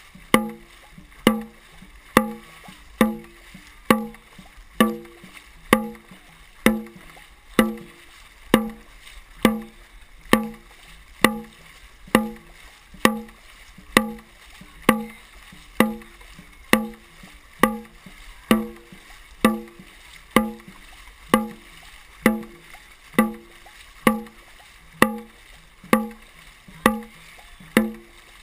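Dragon boat drum beaten at a steady pace, a little under one beat per second, each beat a short ringing boom that sets the paddlers' stroke rate.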